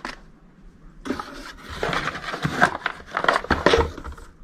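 Packaging being handled: a plastic packet rustling, with small hard parts clicking and clinking, starting about a second in and lasting about three seconds.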